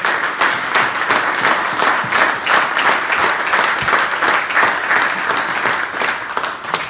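Audience applauding, with one pair of hands clapping close to the microphone; the applause dies down near the end.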